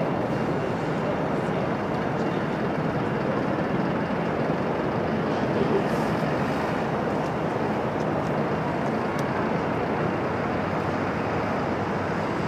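Steady jet-engine rumble with no rise or fall, from an Airbus A319 starting its engines during pushback.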